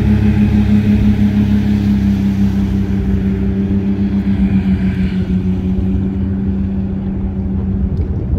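Motorboat engines running at speed with a steady low drone over rushing water. The higher hiss fades about halfway through as the boat pulls away, while the drone carries on.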